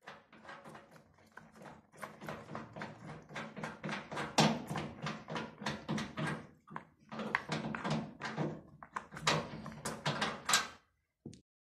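A rapid, irregular run of knocks and rattles from the washing machine's cabinet and adjustable foot as it is handled at its front leg. It stops just before the end.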